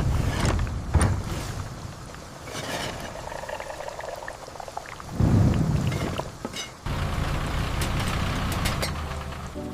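Steady rain, with bouts of deep rumbling that set in suddenly: one at the start, another about five seconds in, and a longer one from about seven seconds that fades near the end.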